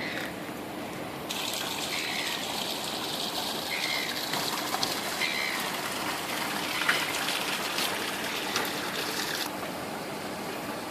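Rushing, gushing water: a steady hiss that comes in abruptly about a second in and cuts off suddenly near the end, over the general sound of rain. A few short high chirps sound within it.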